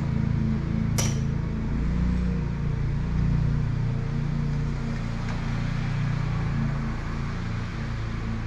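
Riding lawn mower's small engine running steadily under load while mowing, with one sharp click about a second in.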